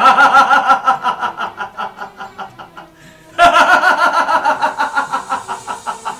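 High-pitched laughter in two bursts about three and a half seconds apart, each a quick run of 'ha' pulses that fades away.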